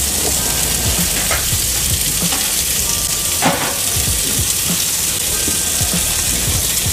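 Horse meat patties sizzling steadily on a flat-top griddle, with a couple of short sharper sounds as a spatula works them.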